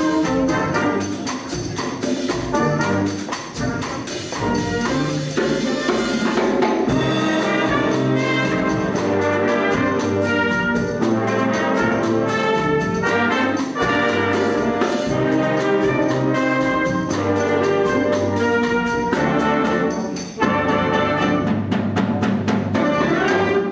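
Concert wind band playing a Cuban-style piece: clarinets, flutes and saxophones with trumpets, trombones and tubas over drum-kit percussion. The sound drops briefly about 20 seconds in, then the full band comes back in loudly.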